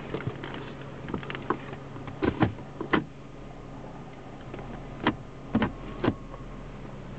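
Automatic gear selector lever of a Mercedes-Benz W220 S-Class being moved through its gate, its detents giving sharp clicks and clunks. There are two bursts of clicks, one about two to three seconds in and another about five to six seconds in, over a steady low hum.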